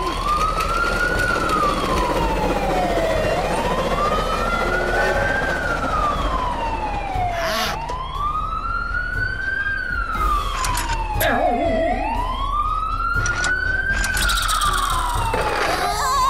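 A siren wailing, its pitch rising quickly and then falling slowly, four times over. A few short clicks and knocks sound over it.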